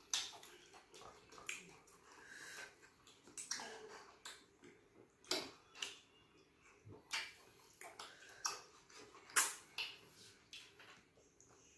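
Close-miked eating of starch with light soup: wet chewing and lip smacking, a string of irregular short clicks and squelches.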